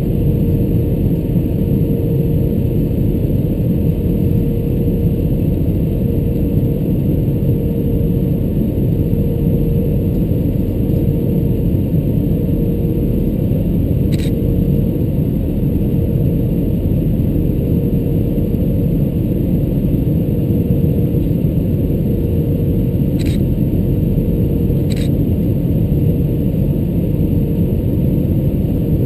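Steady cabin roar inside an Airbus A320-214 descending on approach, from engine and airflow noise through the fuselage, with a faint steady hum. Three brief faint clicks sound in the second half.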